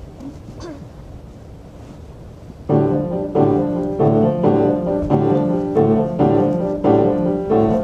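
Piano introduction: after a couple of seconds of faint rustling, a piano comes in with repeated chords in a steady pulse, about one and a half a second. The recording is a little distorted, from a camera running in a pocket.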